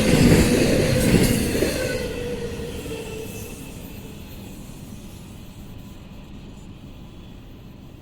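The last cars of a long intermodal freight train rolling past on steel rails, with wheels clicking over the rail joints. The rolling noise fades away over the first few seconds, leaving only a faint background hiss.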